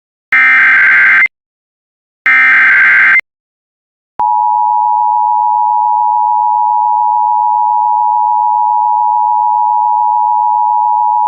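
Emergency Alert System broadcast: two one-second bursts of the SAME digital header, a buzzing warble of data tones. About four seconds in, the EAS two-tone attention signal starts, a loud steady dual-pitched tone. It marks the start of an emergency alert.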